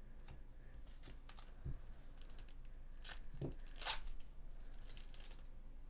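Foil wrapper of a 2024 Bowman Chrome baseball card pack being torn open and crinkled: a run of sharp crackles and rips, loudest about four seconds in, with a couple of soft thumps as the pack is handled.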